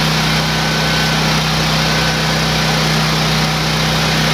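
Ridgid RD6800 portable generator's Yamaha 360 single-cylinder engine running steadily at a constant speed on its first start-up, a even low hum under a broad hiss.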